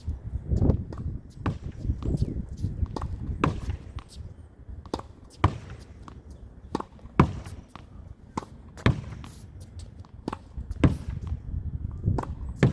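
Tennis ball rally against a practice wall with a regular-weight, regular-compression ball. Sharp pops of the ball off the racket strings alternate with hits off the wall and bounces on the court, a stroke every second or so.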